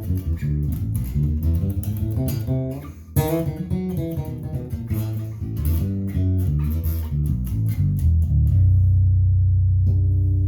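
Harley Benton JJ-55 OP electric bass with DR Pure Blues nickel strings, played through the bridge pickup with the treble rolled fully off: a run of quick plucked notes, a brief break about three seconds in, then a long low note left ringing, with a higher note added near the end.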